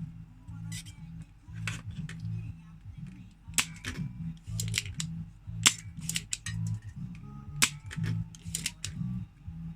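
Sharp, irregular clicks and snaps from hand tools being worked on a circuit board, over background music with a pulsing bass line.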